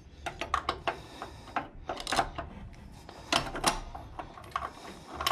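Handling noise close by: irregular light clicks, taps and rubbing as a hand works a plastic straw in an engine's spark plug hole.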